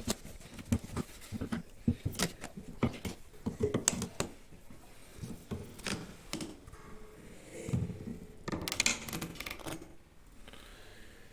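Irregular clicks, taps and knocks from hand work on a corner sofa being taken apart, with a brief scraping rustle about nine seconds in.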